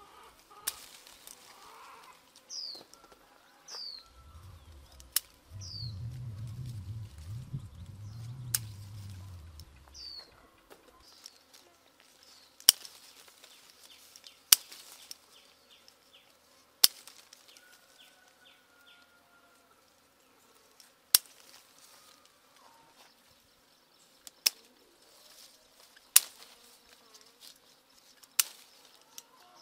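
Scissors snipping through the stems of citrus fruits on the tree: about ten sharp snips, a few seconds apart. Short falling bird chirps come in between during the first half.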